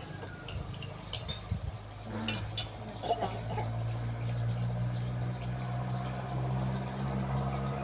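Light clinks of spoons and china plates scattered through the first half, as people eat a shared meal. A steady low hum comes in about halfway and carries on.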